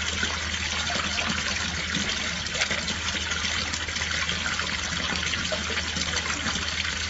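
Steady rush of running water, with a constant low hum underneath.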